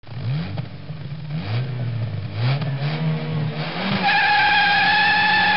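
Car engine sound effect: an engine revving up through several rising sweeps that drop back like gear changes, then holding a steady high-pitched whine from about four seconds in.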